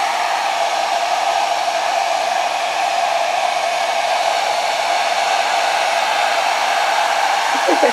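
Hair dryer blowing steadily: an even rush of air with a constant mid-pitched hum.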